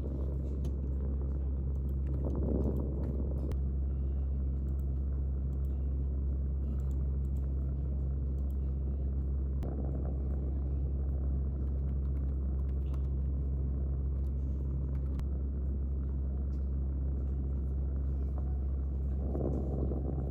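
A steady low rumble, like a car on the move, holding level throughout with a few brief swells.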